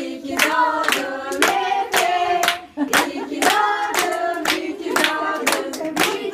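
A group of people singing a birthday song together while clapping in time, about two claps a second.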